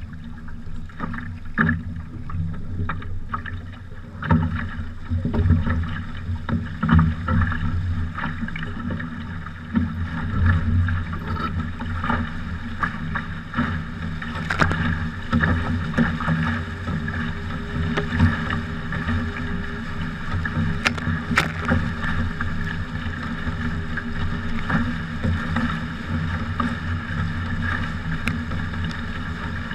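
Water rushing and splashing along the hulls of a 20-foot sailing trimaran under way, with wind on the microphone. Sharp irregular slaps of water in the first half give way to a steadier rush as the boat picks up speed.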